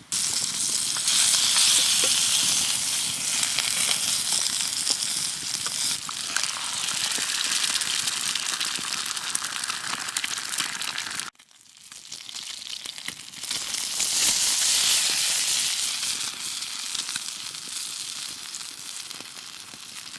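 Food sizzling in a frying pan over a wood campfire: a steady, loud hiss sprinkled with small crackles. It breaks off abruptly about eleven seconds in, then builds back up.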